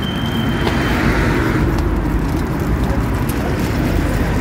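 Steady outdoor background noise dominated by a low rumble, with no clear single event.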